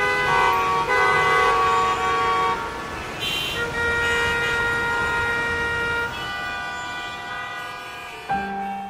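Street traffic ambience with vehicle horns tooting, several held horn tones changing pitch every second or so over a steady background noise. A piano note comes in near the end.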